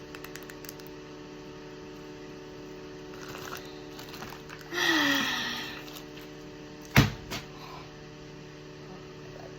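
Steady low hum, with a short rush of noise and a falling tone about five seconds in. About seven seconds in comes a single sharp knock, the loudest sound, followed by a lighter click.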